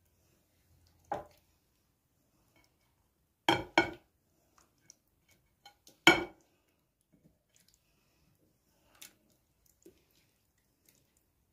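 Short knocks and clinks of glass dishware as sauced vegetable pieces are set into a glass baking dish and the glass bowl beside it is handled: a close pair about three and a half seconds in and the loudest about six seconds in, with fainter taps between.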